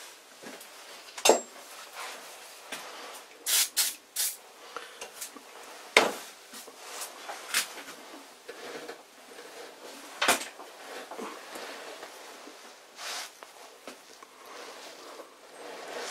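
A hand-turned die in a die stock cutting an M10 thread on an aluminium rod: scattered sharp metallic clicks and creaks, with faint scraping, as the die is turned.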